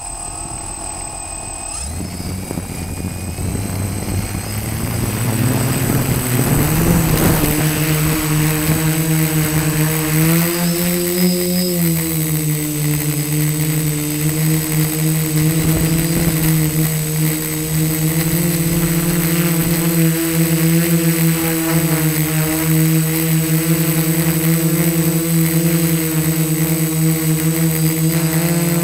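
DJI F450 quadcopter's motors and propellers, heard from a camera mounted on the drone. The pitch rises over the first several seconds as it takes off, then settles into a steady hum with small swells in pitch as it flies.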